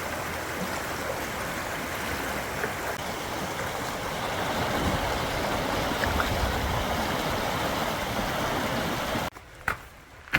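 Creek running high and rushing steadily, flowing strong after rain. It cuts off abruptly about nine seconds in, leaving a few footsteps on a quiet trail.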